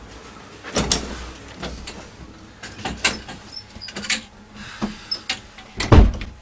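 A string of knocks and clatters from doors and things being handled, with a heavy thump near the end, the loudest of them.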